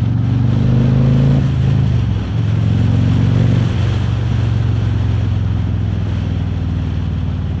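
Harley-Davidson Road King Special's V-twin engine running under way as the motorcycle pulls off, with brief dips in the engine about two and a quarter and three and three-quarter seconds in, and wind rushing over the mic.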